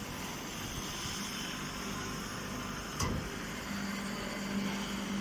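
Straw baler machine running with a steady mechanical noise and a low hum that grows stronger past halfway, with a single knock about three seconds in.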